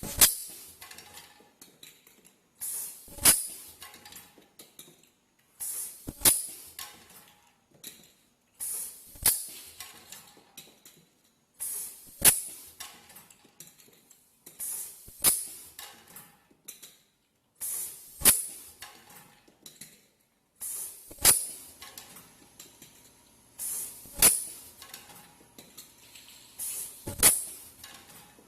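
Automatic rotary-disk ultrasonic welding machine cycling steadily, about once every three seconds. Each cycle is a short high hiss followed by a sharp click.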